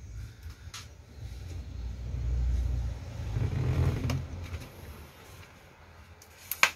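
Low rumble of road traffic, swelling as a vehicle passes in the middle, then a single sharp click near the end.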